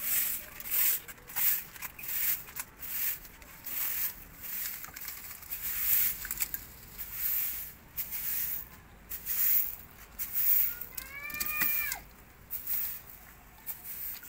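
A cat meows once, a single call rising then falling in pitch about eleven seconds in, with another meow starting at the very end. Throughout, short scraping and knocking noises come and go every second or so.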